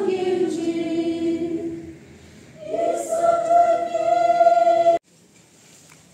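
A group of women singing a hymn together, holding two long notes with a short break between them, then cut off abruptly about five seconds in.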